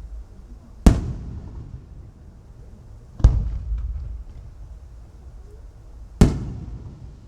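Aerial firework shells bursting: three sharp booms, about a second in, a little past three seconds, and about six seconds in, each followed by a rolling echo that dies away.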